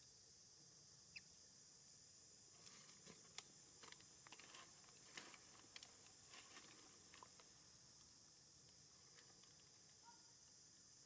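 Near silence: a faint steady high hiss, with a scatter of faint clicks and rustles between about two and a half and seven and a half seconds in.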